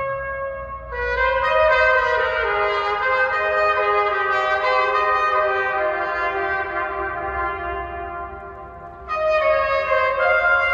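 Trumpet playing a slow melody of long held notes. A new phrase starts about a second in and steps down in pitch as it fades, then a loud phrase enters near the end.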